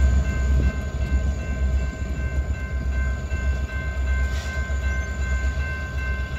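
Diesel locomotives shoving a cut of freight cars slowly along the track: a low rumble that rises and falls, with several steady high ringing tones held over it.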